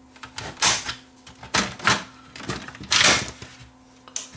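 Plastic exit-sign housing being prised open with a small screwdriver and handled on a wooden workbench: about five sharp plastic clicks and knocks as the front cover comes off.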